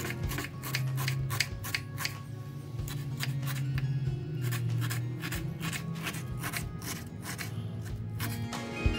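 Chef's knife chopping a red onion on a wooden cutting board, sharp strokes about three a second with a couple of short pauses, over soft background music.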